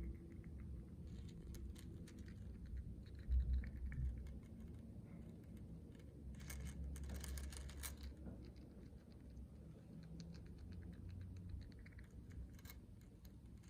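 Small meat grinder crushing colourful nuts: irregular crunching and crackling clicks over a low rumble, with a denser run of cracking about halfway through.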